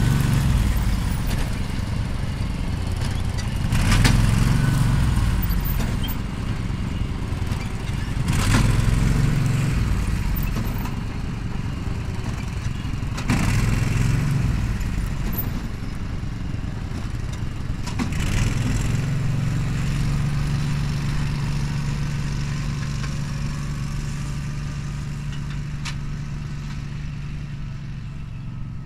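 A John Deere Gator utility vehicle's engine running as it drives away across a field, slowly fading, with a few sharp knocks about every four to five seconds in the first two-thirds.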